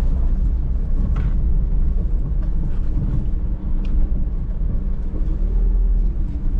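Minivan engine running and road rumble heard from inside the cabin as the van pulls away onto the highway, with a few small clicks.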